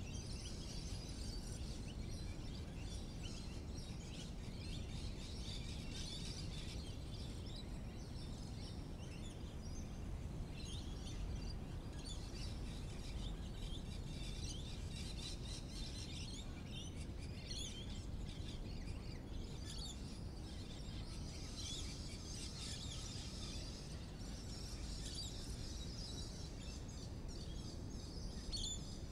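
Many small birds chirping and twittering in overlapping calls, over a steady low rumble of outdoor background noise.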